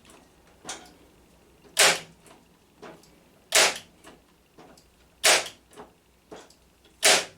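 Lidl Parkside PET 25 C2 electric nailer firing brad nails into softwood: four sharp shots about 1.7 seconds apart, each followed by a fainter click.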